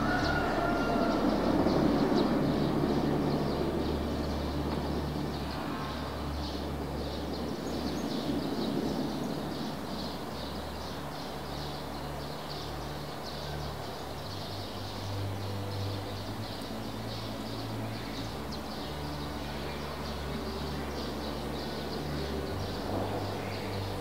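Outdoor forest ambience: a low rumble of a passing vehicle fades away over the first few seconds, leaving a steady low hum, while birds chirp throughout.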